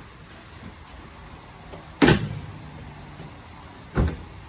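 Two heavy thumps about two seconds apart, the first the louder with a short low hum after it: the rear seat back of a car being set into place against the body.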